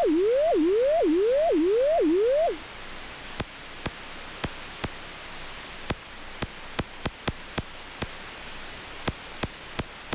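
Synthesized sound effects: a loud tone that sweeps up and snaps back down about twice a second over a steady hiss, stopping about two and a half seconds in. After that, sharp clicks at irregular intervals over the hiss.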